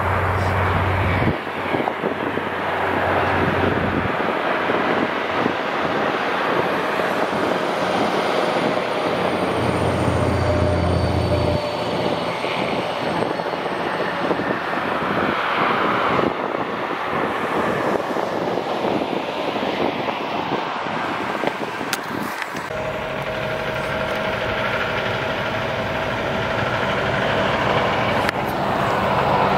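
Interstate highway traffic on a steep grade: the steady tyre and engine noise of a tractor-trailer truck passing below, with a faint engine hum. A deeper rumble comes in abruptly about two-thirds of the way through.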